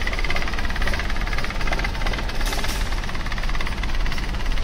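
Car engine idling steadily, with a fast, even pulsing and a low rumble.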